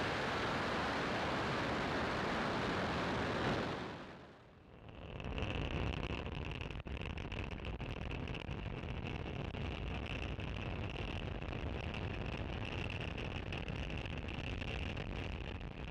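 Falcon 9 rocket's nine Merlin engines at liftoff: a loud, even roar that fades out about four seconds in. After a brief dip the rocket's sound returns as heard from the first stage's onboard camera, a steady rumble with a high whine over it.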